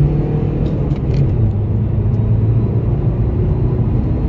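Volkswagen Golf Mk V 2.0 TDI PD140 diesel engine pulling hard under acceleration up to motorway speed, heard from inside the cabin with steady road rumble. The engine note drops about a second in. The owner suspects the engine has been remapped.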